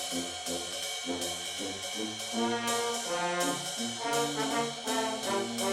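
Brass music with trombones and trumpets playing a rhythmic melody over cymbal strokes.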